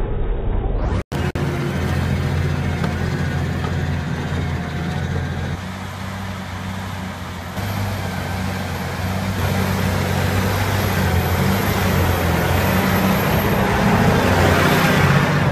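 Case Puma 200 CVX tractor's six-cylinder diesel engine running steadily under heavy load while pulling a three-furrow reversible plough through wet clay. There is a brief cut about a second in, and the engine gets louder towards the end.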